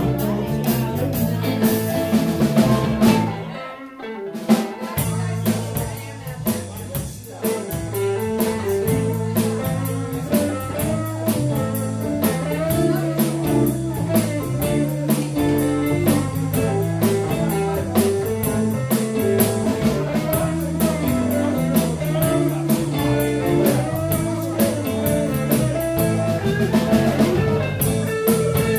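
Live electric blues band playing an instrumental passage: electric guitars, bass guitar and drum kit in a shuffle, with harmonica at the start. The band drops out briefly about four seconds in, then comes back in.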